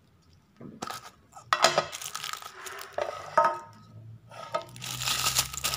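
Hard clear plastic halves of a toy capsule ball clicking and knocking as the capsule is pulled apart and a half is set down on the tabletop. Wrapping and tissue paper crinkle near the end.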